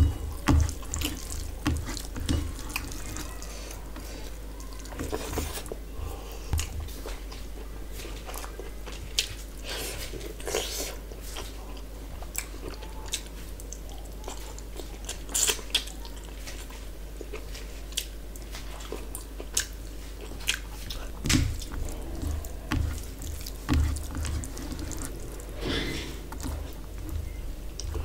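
Close-up eating sounds of rice and fish curry eaten by hand: fingers squelching through the wet rice on a steel plate, with chewing and lip smacks and many short wet clicks. Soft knocks of the hand against the plate come in clusters near the start and again about three-quarters of the way through.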